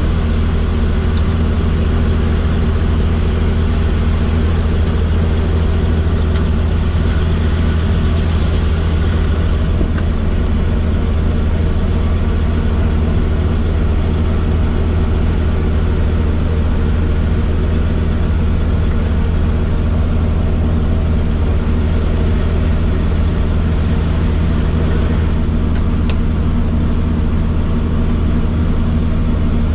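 Helicopter's engine and rotor running steadily: a loud, constant low hum with no change in pitch.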